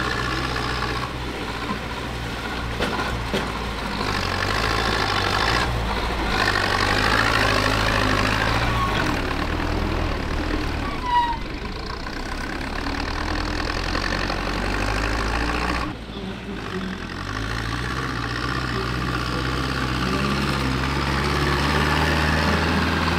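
Farm tractor diesel engine running under load while driving through deep mud, its pitch stepping up and down with the throttle and climbing slowly near the end.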